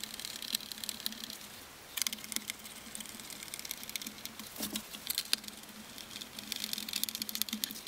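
Hand screwdriver turning M4 Phillips screws through a metal monitor-arm bracket into the back of a drawing tablet: a dense run of small, rapid clicks and scratches, quieter for a moment between about one and two seconds in.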